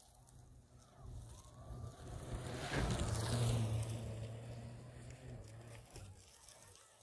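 Moonbike electric snow bike passing close by: a low steady hum from its Bosch electric drive and the hiss of its track and ski on snow, growing louder, peaking about three seconds in, then fading away.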